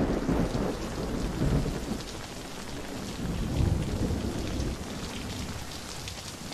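Heavy rain falling steadily, cutting in suddenly, with low thunder rolling under it in the first two seconds and again about three and a half seconds in.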